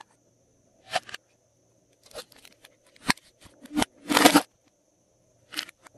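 Hard plastic containers being handled: a series of short clicks and knocks, with a longer, louder rattle about four seconds in.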